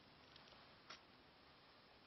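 Near silence: faint background hiss, with one faint click about a second in.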